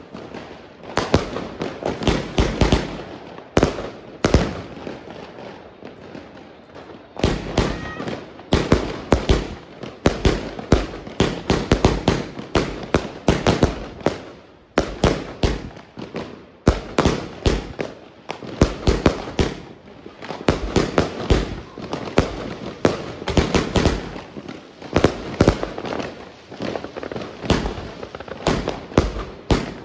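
Redwire 'Redhead Willow' firework cake firing: a rapid, irregular string of sharp launch reports and aerial bursts, several a second, with a brief lull a few seconds in.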